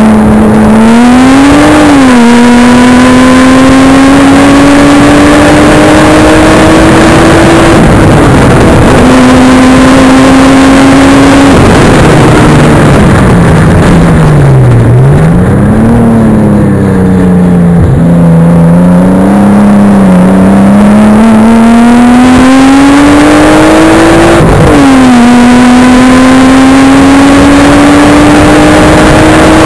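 Nissan Skyline R33 GTST's turbocharged straight-six pulling hard on track. The pitch climbs steadily in each gear, with sharp drops at upshifts about 2 s, 8 s and 25 s in. Around the middle it lifts off and the pitch falls and dips through downshifts before it accelerates again.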